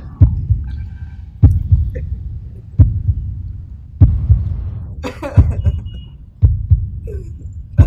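Heartbeat sound effect: a deep double beat that repeats steadily about every 1.3 seconds.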